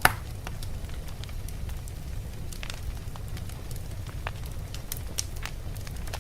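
Fire crackling: scattered sharp pops over a steady low rumble, with one loud pop right at the start.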